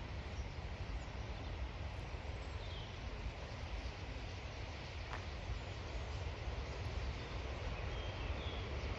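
Steady outdoor rushing noise with a heavy, fluctuating low rumble, over which a few faint, short high bird chirps come about three seconds in and again near the end.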